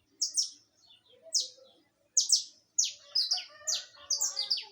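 Saffron finch singing: sharp, high notes that each sweep downward in pitch. They come in pairs and singles at first, then in a quicker run over the second half.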